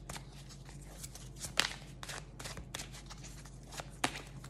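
A deck of oracle cards being shuffled in the hands: a quiet run of irregular papery clicks and snaps, with a sharper snap about a second and a half in and another about four seconds in.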